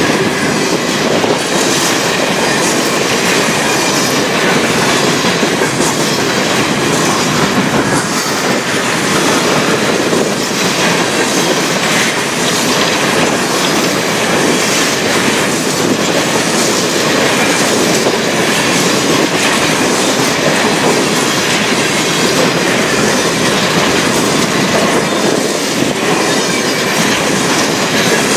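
Freight train hopper cars rolling past at close range: a loud, steady, unbroken noise of steel wheels running on the rails.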